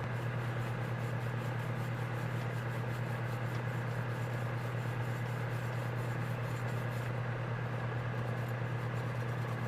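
Wire brush scrubbing corrosion off a carburetor part, a faint rapid scratching repeated several times a second that fades near the end, over a steady low hum.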